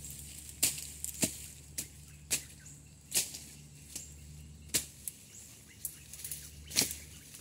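Sharp snaps and crackles at irregular intervals, roughly one a second, like dry twigs and leaf litter breaking underfoot, over a faint steady low hum.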